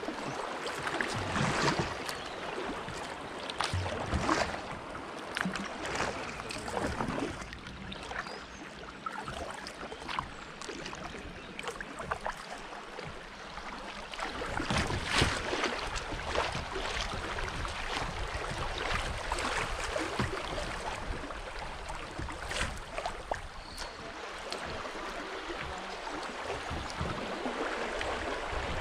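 Fast-flowing river water rushing and lapping around a kayak's hull, broken by irregular splashes from paddle strokes.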